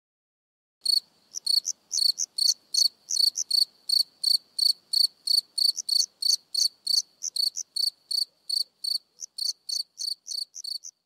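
Cricket chirping sound effect: a steady run of short, high chirps, about three a second, starting about a second in after silence. It is the comic "crickets" gag that marks a line met with no response.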